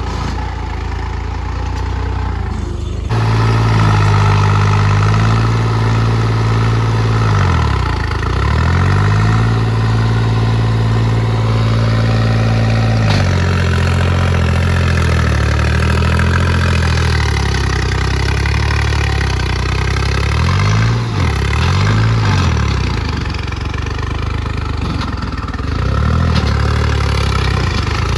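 New Holland 3630 tractor's three-cylinder diesel engine running hard while pulling a heavily loaded sugarcane trailer through deep mud. The engine's pitch drops and comes back up several times under the load.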